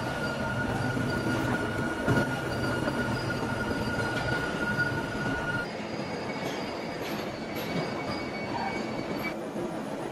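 Machinery running steadily with a thin, high metallic whine that stops about two thirds of the way through, and a single knock about two seconds in.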